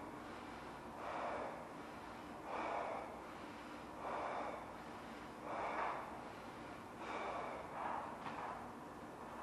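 A person blowing up a large latex balloon by mouth: short, sharp breaths about every one and a half seconds between blows into the balloon.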